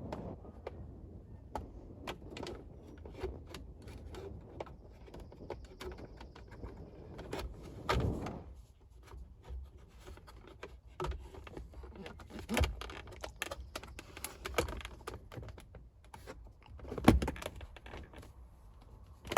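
A new shift boot and its shifter parts being handled and worked into place by hand: scattered clicks, light rattles and rustling, with a few louder knocks about eight, twelve and a half and seventeen seconds in.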